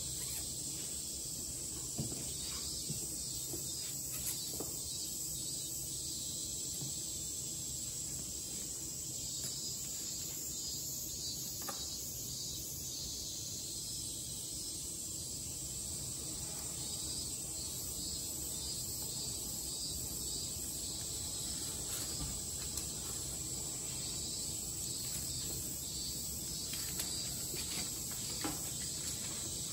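Steady high-pitched background hiss with a low hum beneath, broken by a few faint taps.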